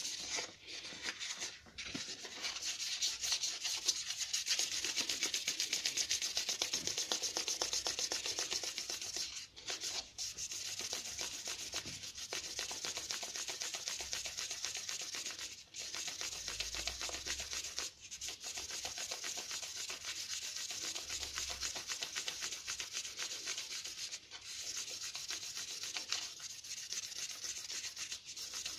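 Abrasive paper being rubbed by hand against a quartz gemstone in quick short strokes, a continuous scratchy rasp broken by brief pauses every few seconds as the paper is shifted.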